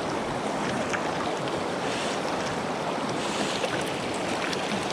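Mountain stream rushing steadily over rocks, an even hiss of flowing water.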